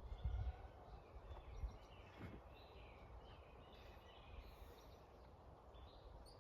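Faint outdoor ambience in a forest: birds chirping now and then over a soft steady hiss, with low rumbling thumps in the first second or so.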